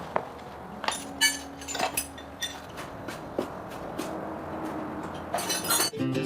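Scattered metallic clinks and knocks with a light ringing after them, as of metal objects being handled and set down. Guitar music comes in near the end.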